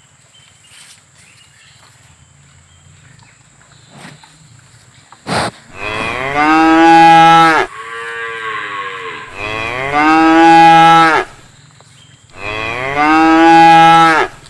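Cow mooing: three long, loud moos starting about halfway through, the first two joined by a fainter drawn-out sound. A sharp knock comes just before the first moo.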